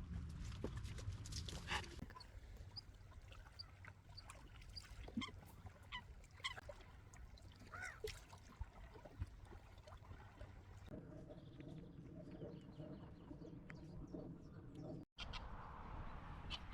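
Wild birds calling, short chirps and whistled notes one after another, over a low rumble of wind on the microphone. About eleven seconds in, a steadier, lower sound made of several tones takes over.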